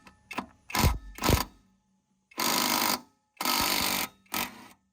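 A few metallic knocks as a socket is fitted, then a cordless power tool, most likely an impact wrench, runs in two bursts of under a second each and a shorter third near the end, working the locking lug nuts on the Jeep's spare tire with a security socket.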